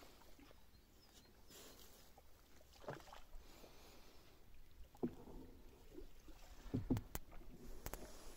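Canoe moving slowly through calm water: quiet dips and drips, with a few short sharp knocks in the second half.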